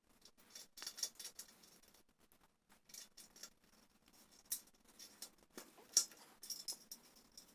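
Wire cable being worked and fastened by hand: faint, irregular clicks, rattles and scrapes, with a few sharper clicks about a second in, near the middle and about six seconds in.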